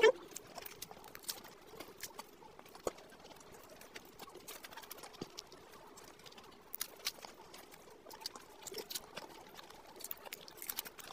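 Close-miked chewing of a samosa: soft, scattered crackles of fried pastry and wet mouth clicks, with a fresh bite near the end.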